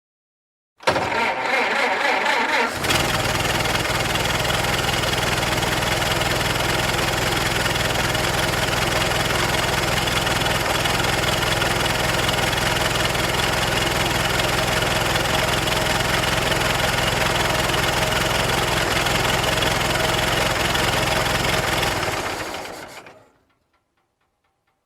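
Antique car engine being started: the starter cranks for about two seconds, then the engine catches and settles into a steady idle, fading out near the end.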